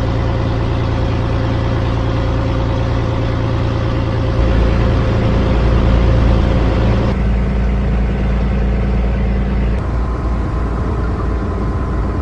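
Fishing boat engine running steadily, a loud low hum with a steady pitch. It grows heavier about four seconds in, and the sound changes abruptly twice later on.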